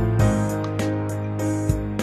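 Instrumental background music with a steady beat over a sustained low bass note.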